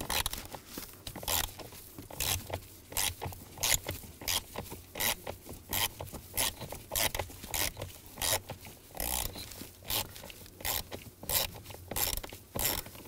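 Ratchet with a T30 socket backing out the accelerator pedal's upper mounting screw: short bursts of ratchet clicking with each back-swing, repeating evenly about twice a second.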